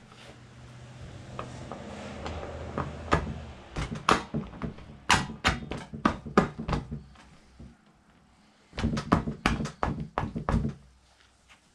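Metal mini bike parts knocking and clinking together as a freshly greased part is worked into place by hand, in two bursts of sharp knocks with a pause between. A low steady hum sounds in the first few seconds.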